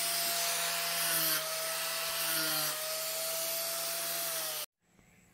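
Electric disc grinder running and grinding a stainless steel blade edge: a steady whine over a rushing hiss, shifting a little in level and pitch as it bears on the metal, then cutting off suddenly near the end.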